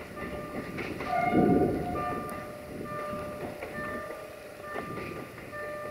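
Duewag class 628 diesel multiple unit running past, a steady rumble of engine and wheels with brief high-pitched tones coming and going. The sound swells loudest about a second and a half in.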